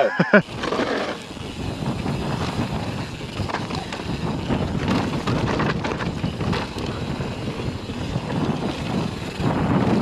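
YT Tues Core 4 29 downhill mountain bike ridden fast down a dirt trail: tyres rolling over loose dirt and the bike rattling with many small knocks over the bumps, with wind buffeting the microphone.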